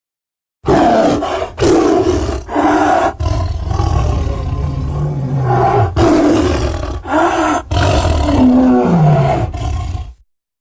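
Film sound effect of a giant creature roaring. A string of deep roars and growls runs with short breaks between them, starting about half a second in and cutting off just before the end.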